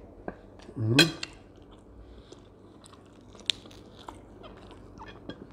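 Close-up eating of roasted chicken by hand: chewing and biting with crunchy bites and scattered sharp mouth clicks, the sharpest about three and a half seconds in. About a second in, a short voiced sound from the eater rises in pitch.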